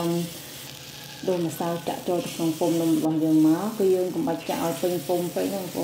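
Rice-flour and coconut batter sizzling as it is ladled into the wells of a hot, oiled num krok pan, with a steady hiss under a woman's spoken narration.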